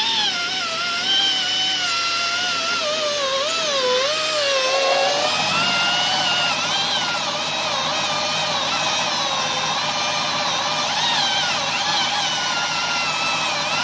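Die grinder spinning a 3M Roloc Bristle disc against a car's bare steel body panel, scrubbing off paint and rust. A steady high whine whose pitch wavers and sags as the bristles bite, running higher and steadier from about five seconds in.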